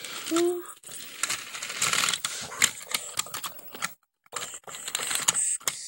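Irregular plastic clicking and rattling of a toy train and its plastic track, with a short hummed note at the very start.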